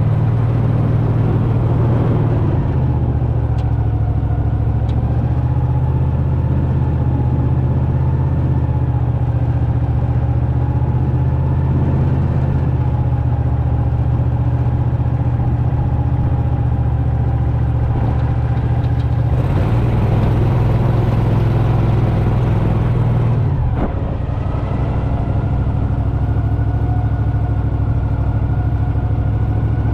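Engine running steadily under way, its note shifting a little about two-thirds of the way through and dipping briefly soon after.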